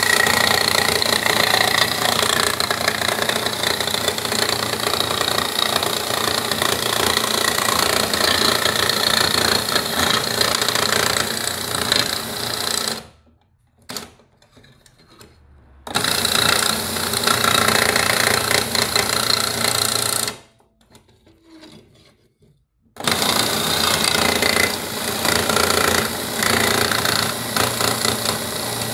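Schieferdino PLUS slate-cutting machine running, its cutting mandrel nibbling a cut-out from a slate plate with a fast, continuous chatter. It stops twice for a few seconds, about 13 and 20 seconds in, and starts again each time.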